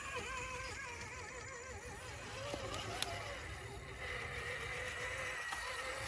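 Small electric motors of radio-controlled scale crawler trucks whining faintly as the trucks crawl over dirt and rock, the whine steadier from about four seconds in, with a couple of sharp clicks, the clearest about three seconds in.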